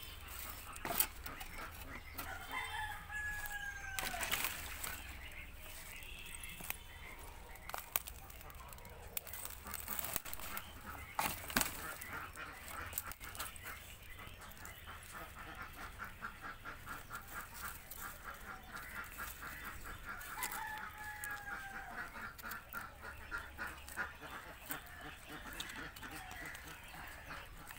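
A rooster crowing twice, each crow a long call that falls slightly at the end, the first about two seconds in and the second about twenty seconds in.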